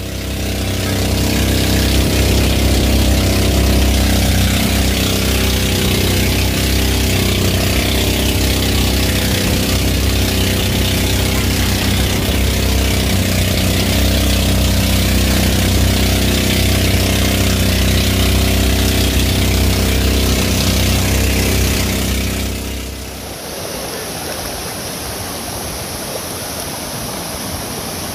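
An engine running steadily at an even speed. About three-quarters of the way through it cuts off, giving way to a steady rushing noise.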